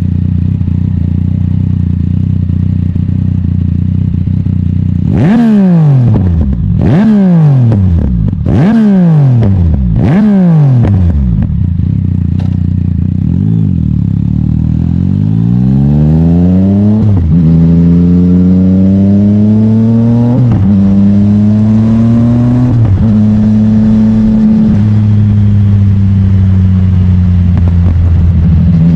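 Yamaha MT-09 Tracer's three-cylinder engine through an Akrapovic exhaust, idling, then blipped hard four times about a second and a half apart, each rev falling straight back to idle, then twice more lightly. From about seventeen seconds the engine pulls under steady throttle, its pitch climbing slowly and dropping in steps at several gear changes.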